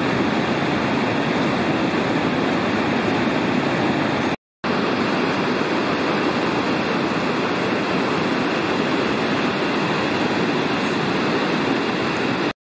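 River water rushing over a low weir: a steady, loud sound of churning whitewater from the high-running river. It drops out for a moment about four seconds in and cuts off suddenly near the end.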